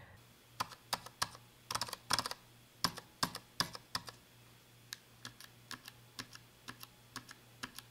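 Black linear mechanical keyboard switches pressed and released one key at a time, close-miked: a string of soft, irregular keycap clacks, closer together in the first half and sparser later. This is the switch noise listeners use to judge how scratchy or smooth a switch is.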